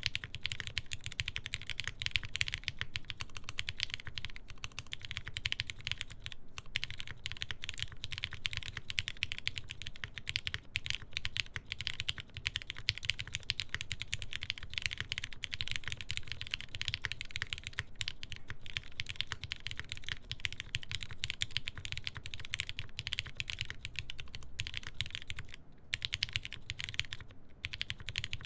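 Continuous fast typing on a mechanical keyboard with lubed linear Cherry MX Black switches in a full aluminium plate and GMK keycaps, a dense stream of keystroke clacks with a couple of short pauses near the end.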